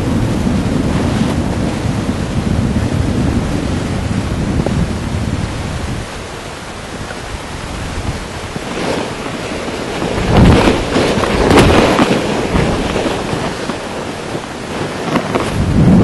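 Wind buffeting a helmet-mounted microphone in flight under a paraglider wing, a heavy rumbling rush that eases about six seconds in and then swells in gusts around ten to twelve seconds in.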